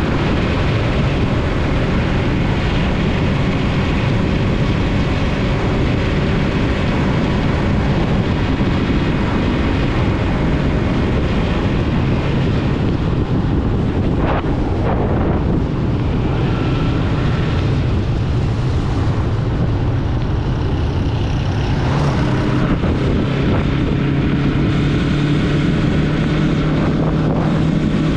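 Yamaha MT-03 motorcycle engine running steadily while riding on a dirt road, with wind noise on the microphone. The engine note rises a little about two-thirds of the way through.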